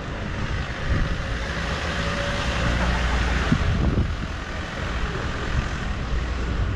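Street traffic: a vehicle driving past, its engine and tyre noise swelling about two to four seconds in and then easing off, over a steady low rumble.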